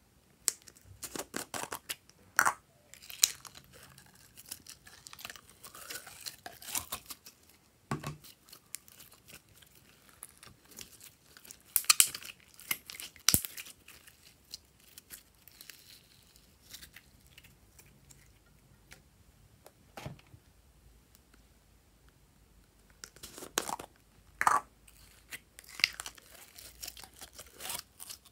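Hands stretching and squeezing glossy slime, giving sticky crackles, pops and tearing sounds in irregular bursts. There are also a few sharp clicks from plastic toy containers being opened and handled.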